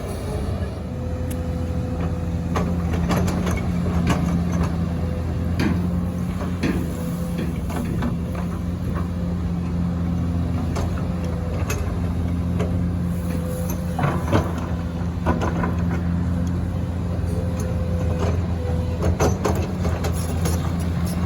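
XCMG XE215CT excavator's diesel engine running steadily under load while it digs rock, with a whine that comes and goes. Sharp knocks of stone striking the steel bucket come every few seconds.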